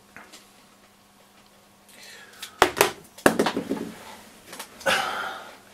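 Small objects being handled and set down on a workbench cutting mat: two sharp clicks about two and a half and three and a quarter seconds in, with light clatter and rustling after them.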